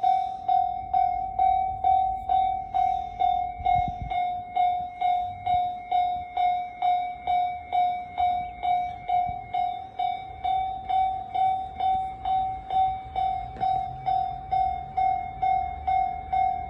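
Railway level-crossing warning bell ringing steadily, about two dings a second, the signal that a train is approaching the crossing.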